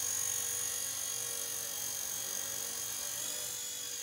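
Blade Nano S2 micro RC helicopter's small electric motors and rotor running in a steady high-pitched whine, the pitch shifting slightly a little over three seconds in.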